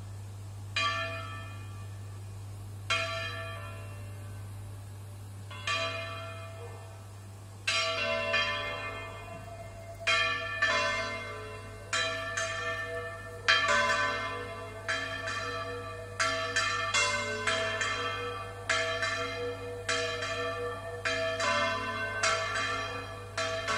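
Church tower bells swung full circle in the Valencian volteo style. At first single strokes ring out a few seconds apart, then from about eight seconds in several bells strike in quick, overlapping succession, each stroke ringing on.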